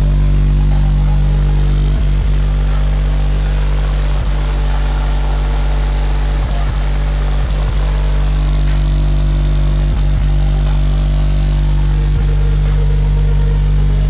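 Loud, steady low bass drone with overtones, holding the same pitch throughout, with faint clicks now and then.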